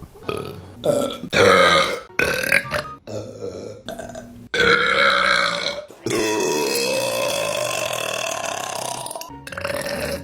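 Women burping: several short burps in quick succession from separate clips, then one long burp lasting about three seconds, its pitch slowly rising.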